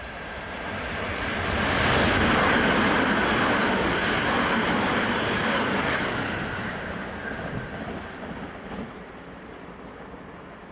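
Southern electric multiple unit passing close by on the rails at speed. Its wheel and rail noise rises to a peak about two seconds in, holds for about four seconds, then fades away.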